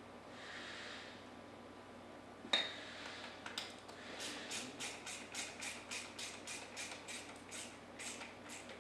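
Ratchet wrench clicking in quick, even strokes, about three or four a second, as it turns a bolt on a Comet P40 diaphragm pump, after a single sharp metallic knock.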